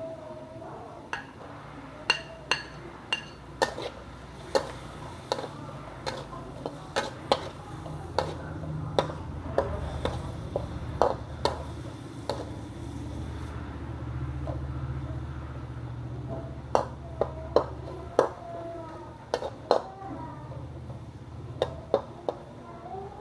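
Metal spatula stir-frying squid and cucumber in a metal wok, with sharp, irregular clinks and scrapes as it strikes and sweeps the pan.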